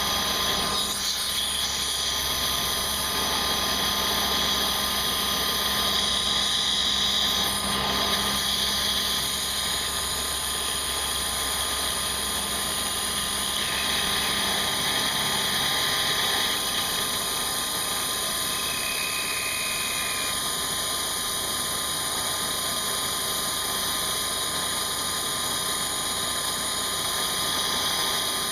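CNC milling machine running steadily while milling a part, its high-speed spindle giving a continuous whine with several steady tones over hiss. The tone shifts slightly about halfway through as the cut changes.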